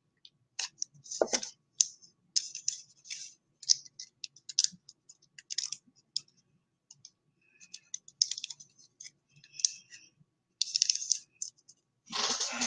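A thick trading card being worked into a plastic card case: irregular scraping and clicking of plastic and card stock in short bursts, the card almost too thick for the case.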